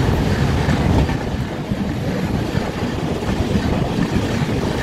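Passenger train rolling along the track, heard from aboard a coach: a steady rumble of wheels on rail.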